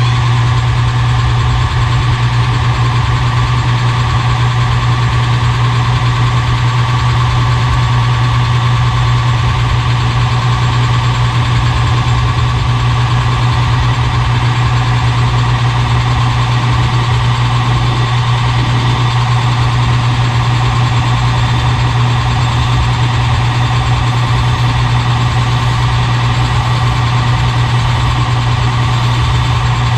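Metal lathe running steadily, its electric motor giving a strong low hum.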